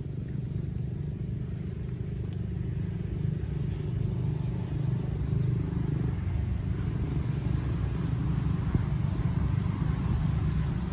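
A steady low rumble, with a quick run of short high chirps near the end.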